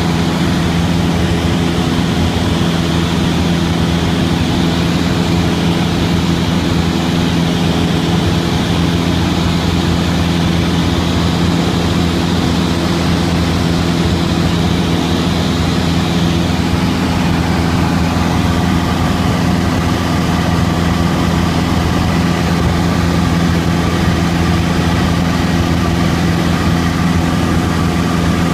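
Cabin noise of a small propeller airplane in flight: the engine and propeller drone at a steady pitch, with a constant rush of air behind it.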